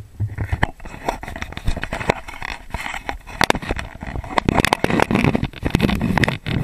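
Footsteps crunching and rustling through dry grass and weed stalks, an irregular run of crackles and scrapes that grows louder in the second half.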